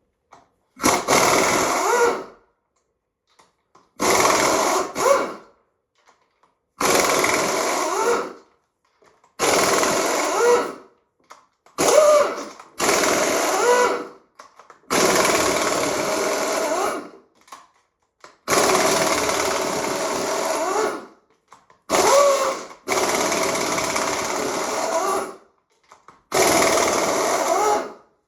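Power wrench with a 5/8 socket running in short bursts of one to three seconds, about ten times, as it spins out the engine's cylinder head bolts.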